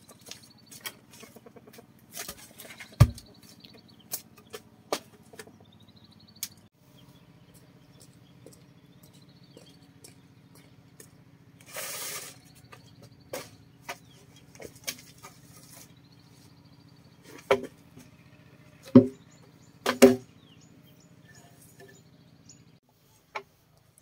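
Scattered knocks and taps of manual work, with a few sharp blows about three seconds in and three more near the end, over a faint steady low hum that stops just before the end. A bird chirps several times with short rising calls.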